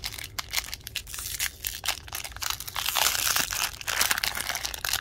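Foil wrapper of a hockey trading-card pack crinkling and tearing open by hand, a dense crackle that is loudest past the middle.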